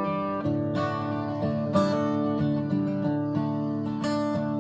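Acoustic guitar being played, strummed and picked with the notes changing every fraction of a second, and two harder strums, one under two seconds in and one near the end.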